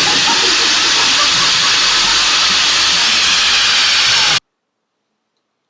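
A loud, steady hissing noise that cuts off abruptly a little over four seconds in.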